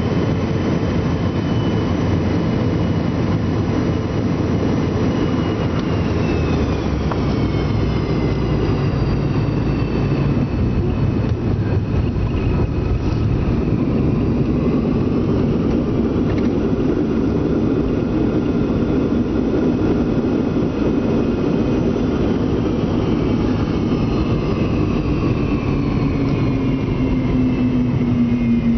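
Jet airliner landing and rolling out, heard from the cabin: a steady loud rush of engine and air noise with whining tones that slowly fall in pitch as the plane slows.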